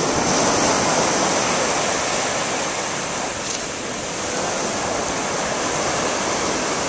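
Surf washing onto the beach: a steady rush of waves over wet sand.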